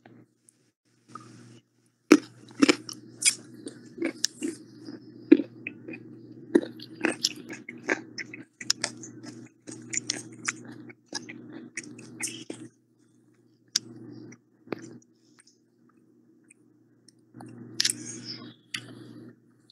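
Someone chewing close to a microphone: irregular crisp crunches and clicks, over a low hum that cuts in and out.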